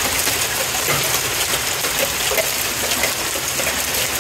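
Hailstorm: a steady, dense hiss of falling hail and rain with many small ticks of hailstones hitting grass and pavement.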